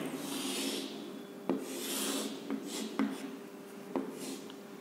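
Chalk scraping across a blackboard in short strokes as figures and boxes are drawn, with a few sharp taps where the chalk meets the board.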